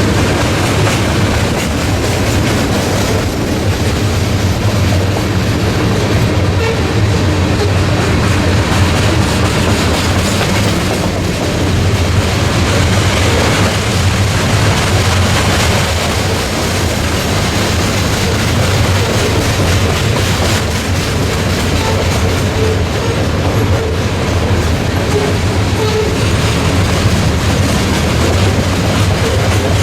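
Railroad cars rolling past steadily, a continuous noise of steel wheels on the rails with a strong low rumble.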